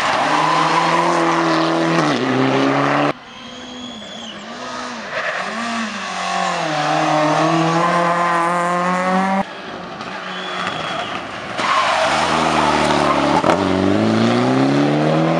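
Rally car engines, one of them a Mitsubishi Lancer Evolution X, revving hard through a junction in several short clips cut together. Each time the engine note climbs steeply as the car accelerates out of the corner.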